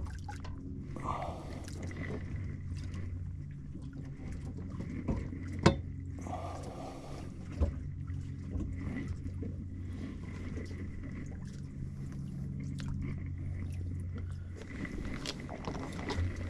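A small boat's motor running with a steady low hum, cutting out a couple of seconds before the end. A single sharp knock sounds about six seconds in.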